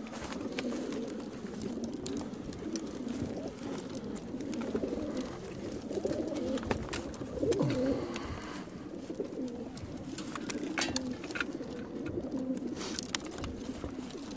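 Many racing pigeons cooing together inside the crates of a pigeon transport truck, a continuous low murmur, with scattered short clicks.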